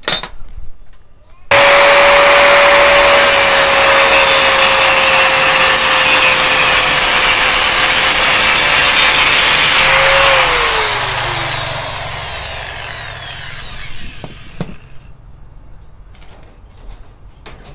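Electric angle grinder starts abruptly and its disc cuts through stiff steel wire mesh: a loud grinding hiss over a steady motor whine. About ten seconds in it is switched off, and the whine falls away as the disc spins down over a few seconds.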